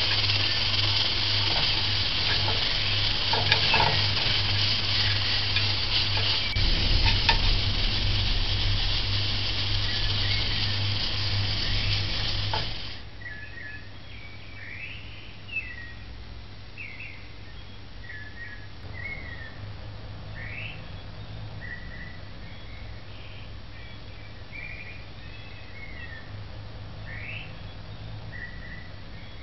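A loud, steady hiss with a few faint clicks that cuts off about halfway through. After it, a quiet background with scattered short bird chirps.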